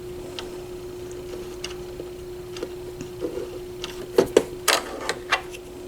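Light plastic clicks and clatter as bobbins are put into a sewing machine's removable free-arm accessory compartment: a few scattered clicks at first, then a quick run of sharper clicks about four seconds in, over a steady hum.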